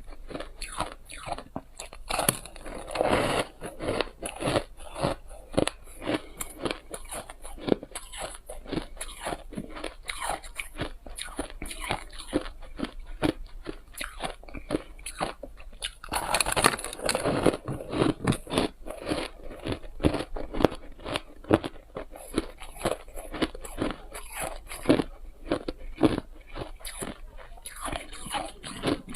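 A person biting and chewing shaved, refrozen ice: a dense run of irregular crunches, with two louder spells of heavier biting, about two seconds in and about sixteen seconds in.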